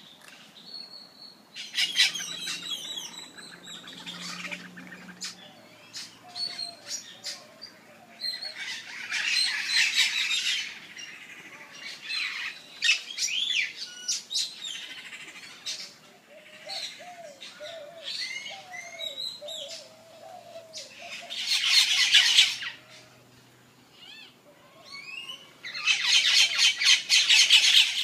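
Birds squawking and chirping in loud, chattering bursts several seconds apart, the longest and loudest near the end.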